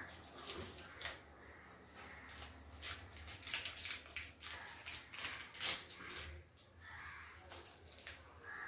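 A plastic seasoning sachet crinkling and crackling in the hands as it is handled and torn open, with soft wet mouth sounds as the seasoning is tasted straight from the sachet.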